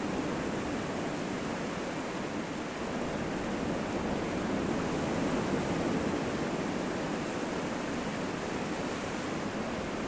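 Sea surf breaking on the shore: a steady rush of waves that swells gently now and then.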